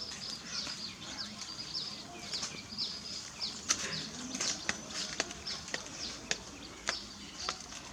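Small birds chirping: many short, high chirps that drop in pitch, a few every second, with scattered sharp clicks and taps among them.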